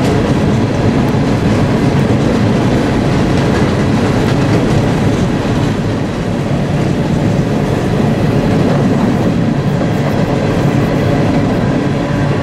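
Freight train of coal hopper cars rolling across a steel trestle: a steady heavy rumble and clatter of wheels on rail, with a faint thin whine held underneath.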